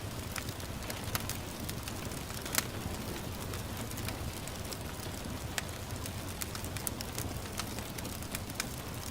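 Wood fire crackling with scattered sharp pops, the loudest about two and a half seconds in, over a steady hiss of gentle rain.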